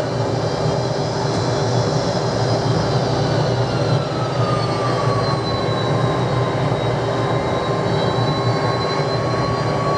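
Jet engines of a McDonnell Douglas DC-10 trijet running at high power, a loud, steady rush with a low rumble and whining fan tones that slowly fall in pitch.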